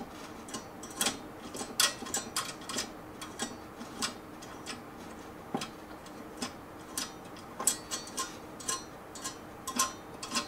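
Irregular light clicks and taps, one to three a second, as fingers work the drive sleds in the bays of an Akitio Thunder2 Quad hard drive enclosure.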